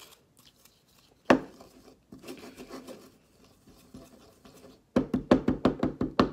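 A spoon stirring a thick, sticky flour-and-lotion paste in a small bowl: soft scraping, one sharp knock against the bowl about a second in, and a fast run of clacks on the bowl rim, about six a second, near the end.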